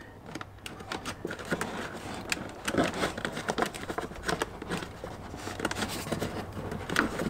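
Hands handling a car door's wiring harness and plastic door panel: irregular small clicks, scrapes and rustles as the wires are tucked away.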